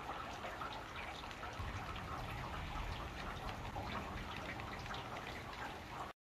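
Steady rain falling and dripping, with many small drip ticks, under a low rumble of distant thunder in the middle. It all cuts off suddenly near the end.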